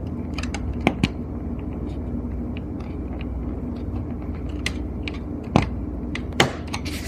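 A blade prying at a plastic screen housing, with a few sharp plastic clicks as the snap clips are worked loose: two close together about a second in and two more near the end. A steady low hum runs underneath.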